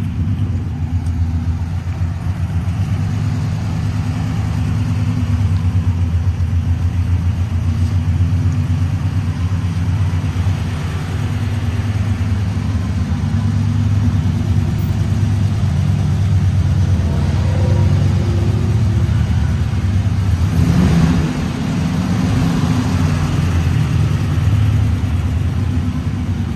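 1959 Ford F-250 pickup's engine running steadily, with a brief louder swell about twenty seconds in.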